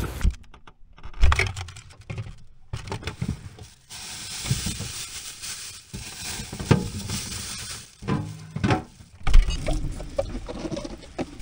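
Scattered knocks and plastic-bag rustling, then a kitchen tap running water from about nine seconds in, splashing into a steel sink over vegetables being washed.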